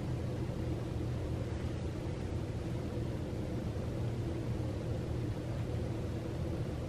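A steady low hum with a faint hiss, even and unchanging throughout.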